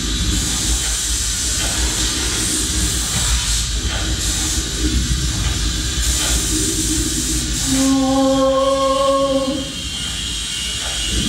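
A steady hissing, rushing noise with a low rumble beneath it, and one held pitched note lasting just under two seconds near the end.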